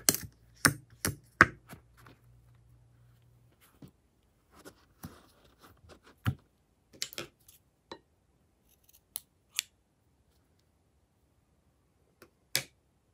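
Sharp clicks and snaps as hands handle a liquid-filled rubber balloon: four in quick succession at the start, then single clicks scattered through the rest.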